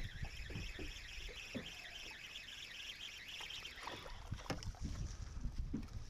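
Irregular low knocks and rumbles of moving about in a small fishing boat, with wind on the microphone, over a steady high chirring. A few sharper clicks come in the second half.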